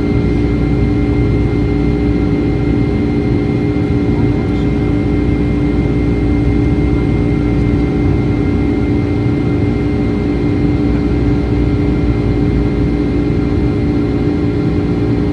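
Cabin noise of a Boeing 757 climbing out after takeoff: the jet engines' loud, steady roar heard from a seat beside the engine, with a steady droning hum.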